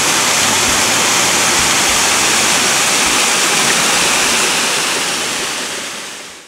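Small waterfall pouring over layered rock ledges into a creek pool: a steady, loud rush of splashing water that fades out near the end.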